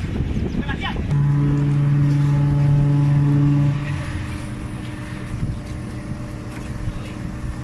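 A steady, flat-pitched horn blast lasting about two and a half seconds, starting about a second in, over the low rumble of a running engine.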